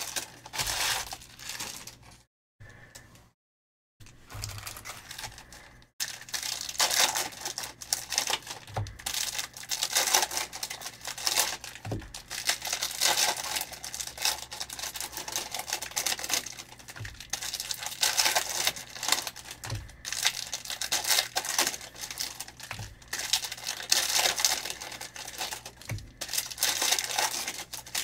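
Trading cards and foil pack wrappers being handled: a steady crinkling rustle as cards slide and are shuffled through, with soft low thuds every few seconds. The sound drops out briefly about two seconds in.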